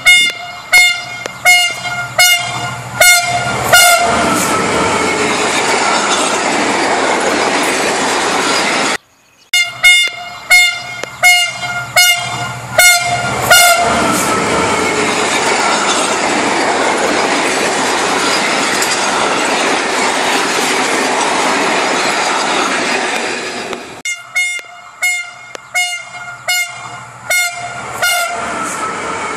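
A train horn gives runs of short, quick toots, about seven at a time, between stretches of the train running with a steady rushing rumble. The pattern comes three times. The sound cuts out for a moment about nine seconds in, and the last run of toots is quieter.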